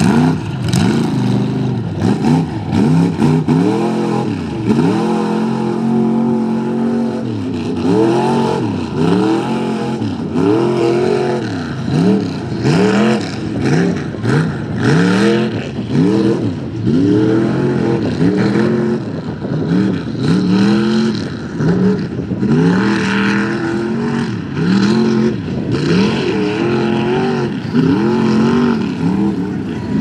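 Big-block Ford V8 in a lifted mud-bog pickup revving up and down over and over, about once a second, as the truck pushes through deep mud.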